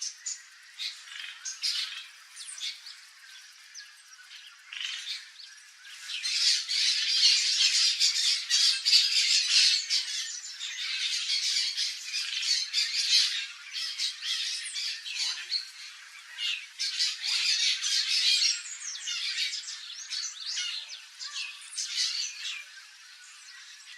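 Turquoise-fronted parrots (Amazona aestiva) squawking: scattered harsh calls at first, then from about six seconds in a loud, dense run of overlapping squawks that thins out again in the last few seconds.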